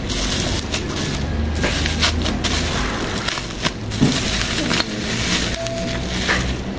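Plastic bubble wrap crinkling and rustling with many sharp crackles as it is pulled off a wooden kalimba.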